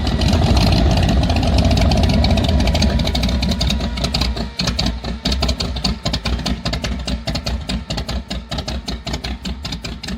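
Old engine running just after a cold start, at first a dense, steady low rumble, then from about halfway settling into distinct, evenly spaced firing beats at roughly five or six a second.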